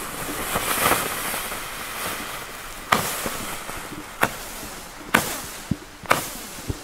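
Small firework battery (a 'fire drum' cake of many little tubes) going off: a hissing rush in the first second, then five sharp cracks, about one a second, as the tubes fire one after another.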